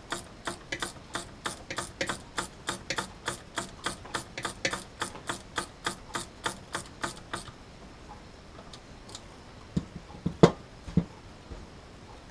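Hand ratchet clicking in an even run of about four to five clicks a second for roughly seven seconds, then stopping. A few sharp metal knocks follow about ten seconds in, the loudest sounds here.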